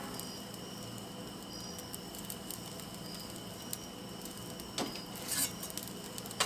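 Steady low hiss of the Ooni Koda's propane-fired flame, with a light click about three-quarters of the way in and a short metal scrape a moment later as the metal turning peel goes back into the oven.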